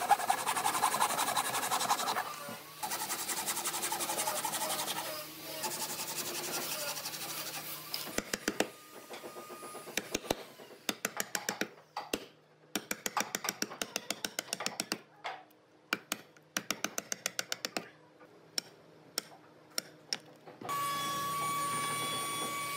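Hand saw cutting pine in quick, even strokes, then short bursts of fast strokes and sharp taps as the wood is cut and pared. Near the end a steady high hum begins.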